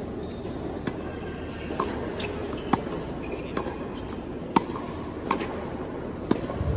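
Tennis ball being hit back and forth with rackets in a baseline rally: a series of sharp pops about a second apart, racket strikes mixed with ball bounces, the loudest about three seconds and four and a half seconds in, over a steady hall background.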